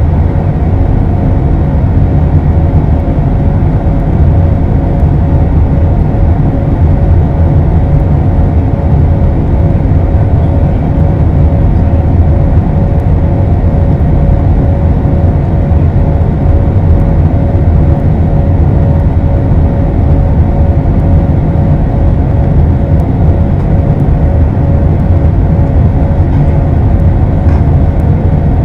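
Steady cabin noise of a jet airliner in flight: engine and airflow noise heard from a window seat over the wing, heaviest in the low end, with a thin steady whine held on one note running through it.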